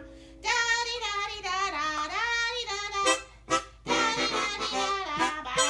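A harmonica played in wavering, sliding phrases, with a short break a little after three seconds in.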